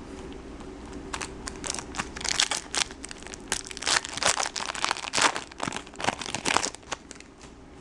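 Crinkling and crackling of a foil trading-card pack wrapper being handled and torn open, in irregular sharp crackles that die down near the end.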